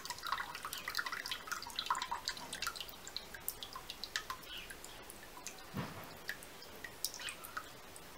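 Soak water draining out of an orchid's bark-filled plastic pot held above a pot of water, falling back in as irregular drips that thin out over the seconds. It is the pot being drained completely after watering by immersion.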